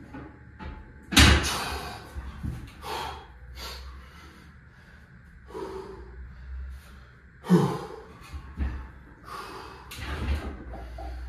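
A lifter's sharp, heavy breaths and exhales, broken by a loud slam about a second in and two more heavy knocks later on, like weight equipment being set down on a gym floor.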